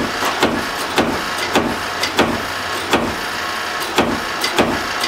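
Handbuilt Japanese-style spring and tire hybrid power hammer running at a slow setting, its ram striking a wooden board on the anvil in an even rhythm of a little under two blows a second, over a steady hum.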